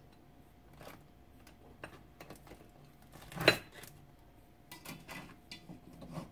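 Boiled blue crabs handled and set down on a plate: scattered light clicks and knocks of crab shell against the plate and pot, with one sharp clack about three and a half seconds in.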